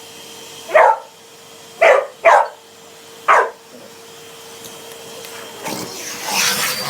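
A dog barking sharply four times, two of the barks close together, at a hoover. Near the end a vacuum cleaner's motor starts up louder with a rising high whine.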